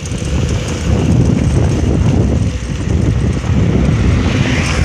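Wind buffeting the microphone in a steady low rumble as a bicycle rolls fast down a street.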